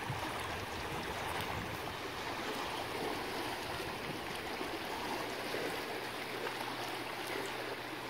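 Fast tailwater current of a river rushing steadily past rocks, running high because the dam upstream is releasing water to generate power.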